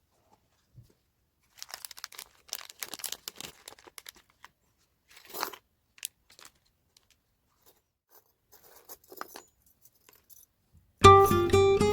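Parcel packaging being torn open and crinkled by hand, in scattered bursts of rustling and crackling. Music starts about a second before the end.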